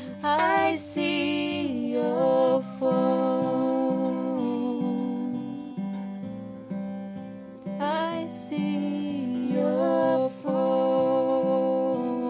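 Steel-string acoustic guitar playing an unaccompanied passage after the last sung line, the low notes moving about twice a second under ringing chords.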